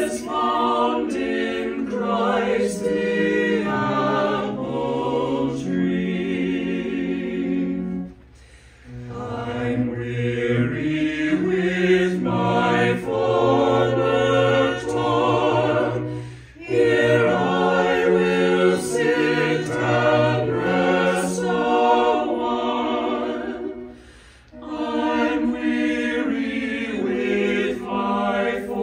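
Church choir singing unaccompanied in several parts, in phrases of about eight seconds with a short breath between each.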